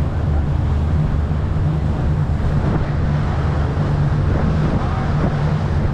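Boat engine running steadily with a low, even hum, with wind buffeting the microphone.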